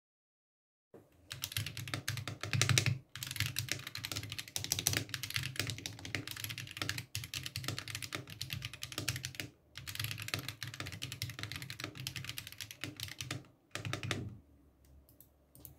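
Fast, continuous typing on a custom mechanical keyboard built in a Gamakay K61 case with Akko CS switches, Everglide stabilizers and Cherry-profile keycaps. The rapid keystrokes start about a second in, pause briefly a few times, and stop a little before the end.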